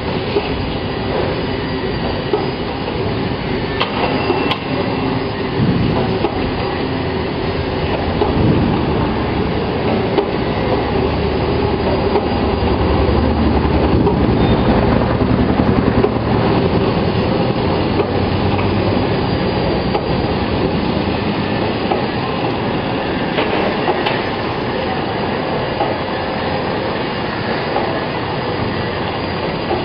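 Paper bag making machine running steadily, feeding the paper web over its rollers. The sound swells a little about midway.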